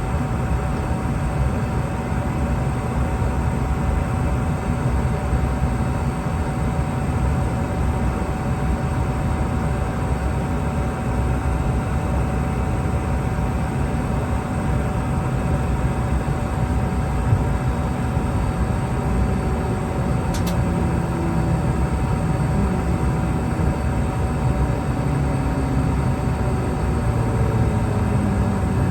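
Steady cabin drone inside a Boeing 717-200 on the ground, a low rumble with a constant hum, and a faint tone slowly rising in pitch over the last ten seconds. A single short click about twenty seconds in.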